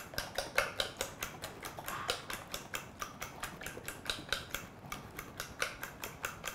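A fork beating egg and evaporated-milk batter for French toast in a ceramic bowl, clicking against the bowl in a quick, steady rhythm of about five strokes a second.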